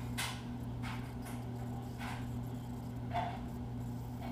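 Steady low electrical hum, with a few faint, short rustles and a small squeak about three seconds in.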